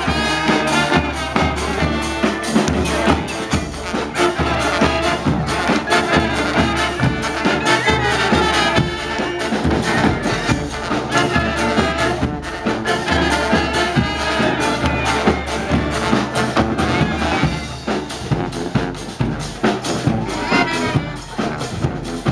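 A brass marching band playing live: trumpets and trombones over a steady drumbeat.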